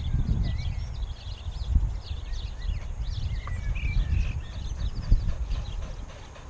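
Wind buffeting the microphone in gusts, with small birds chirping in short calls throughout.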